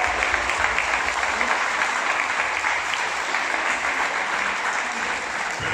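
A large group applauding: dense, steady clapping that eases off slightly toward the end.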